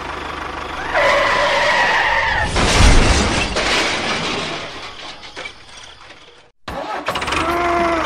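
Vehicle engine noise with a held, horn-like tone about a second in, then a loud crash about three seconds in that fades away. Short pitched tones return near the end.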